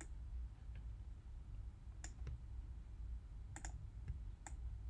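A few sharp, faint clicks from working a computer's pointing input, one pair in quick succession, over a low steady hum.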